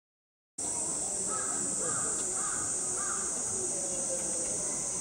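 Summer outdoor ambience: a steady high-pitched insect drone, with a bird cawing four times, about half a second apart, in the first half.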